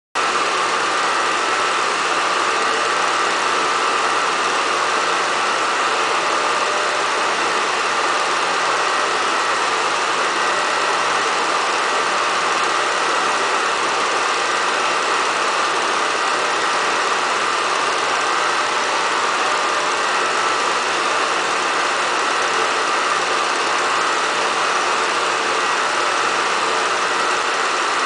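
Steady, unchanging mechanical whirring noise of an 8mm film projector running, with no rhythm or change in level.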